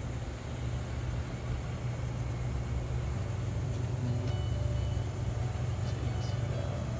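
A steady low rumble of outdoor street noise.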